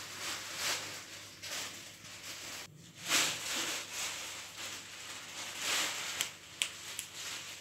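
Soft rustling and a few light clicks as hands spread chopped bell pepper over pizza dough in a pan.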